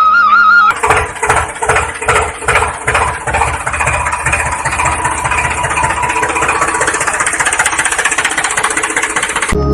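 Tractor-style engine chugging in a steady rhythm of about three or four beats a second, running more smoothly through the middle. A short warbling tone sounds at the very start.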